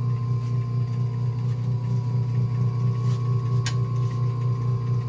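Wood lathe running at speed with a heavy, freshly cut Sissoo (Indian rosewood) bowl blank spinning on it, giving a steady low hum. The blank runs in pretty good balance.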